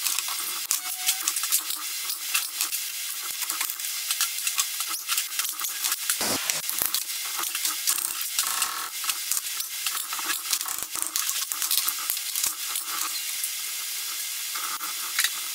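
Small hand ratchet clicking rapidly as bolts are backed out of a Bosch P7100 inline injection pump's housing. A single heavier knock of metal on metal comes about six seconds in.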